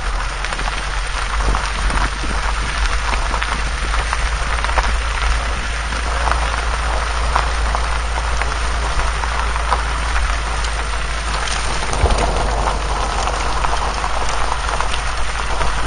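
Vintage military jeep driving along a gravel track, heard close to the front wheel: a steady crackling crunch of gravel under the tyre over a low rumble.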